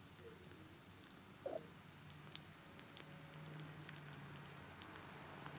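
Nursing kittens: faint suckling with tiny high squeaks and clicks, and one short squeak about one and a half seconds in.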